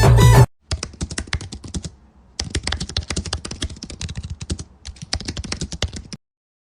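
Fast computer-keyboard typing clicks in three runs with short pauses between them, after music cuts off about half a second in.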